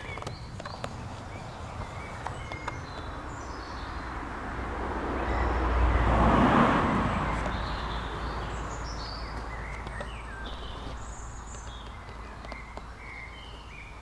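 Outdoor ambience with small birds chirping, mostly in the second half. A broad rushing noise swells over a few seconds to a peak a little past the middle, then fades away.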